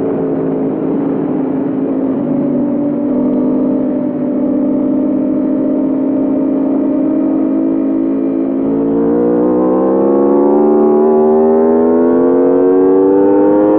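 2021 Aprilia RSV4 Factory's V4 engine heard onboard while riding. The note holds fairly steady for several seconds, then rises steadily from about two-thirds of the way in as the bike accelerates through a gear.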